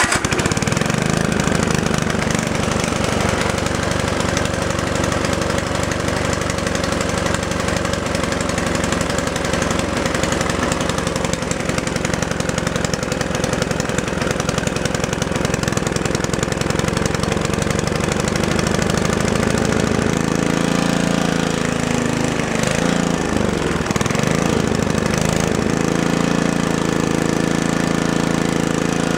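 Ariens Sno-Thro snowblower's 5-horsepower Tecumseh engine running steadily at full throttle just after a cold start. About two-thirds of the way through, its speed dips and wavers for a few seconds, then it settles again.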